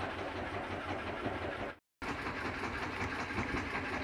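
Wooden river boat's (kelotok's) inboard engine running with a steady low chugging. It is cut off by a moment of dead silence about two seconds in, then carries on.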